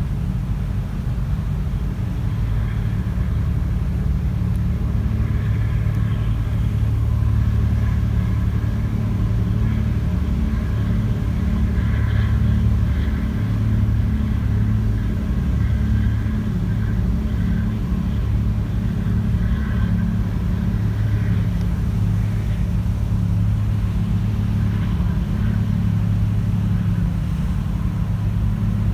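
Steady low drone of a ferry's engines heard from on board, even throughout.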